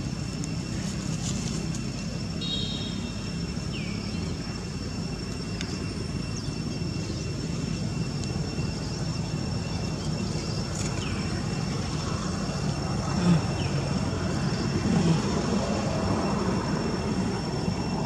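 Steady low outdoor rumble with a faint, steady high-pitched whine over it, and a few brief high chirps.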